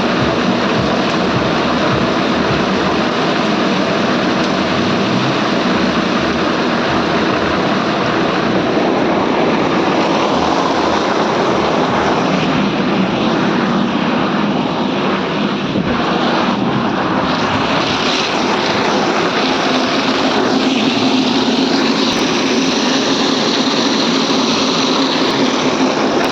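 Engine-driven machinery running steadily with a constant drone and a low, even pulse.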